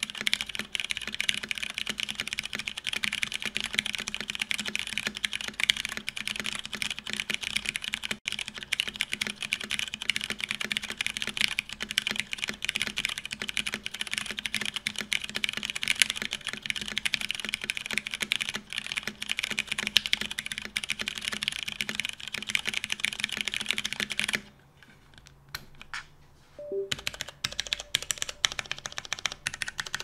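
Mechanical keyboard in an SBL Type DN case, with stock unlubricated Cherry MX Brown switches on a UHMWPE plate and PBT keycaps, typed on quickly and continuously. Near the end the typing pauses for a few seconds, with only a click or two, then starts again.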